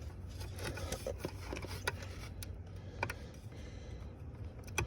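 Several faint clicks and plastic handling noises as a wiring pigtail connector is worked loose behind the trim, over a low steady hum.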